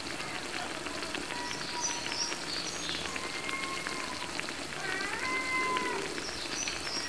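Ripe-banana fritters frying in hot oil in a pan, a steady dense crackling sizzle. A few faint held pitched tones come and go above it.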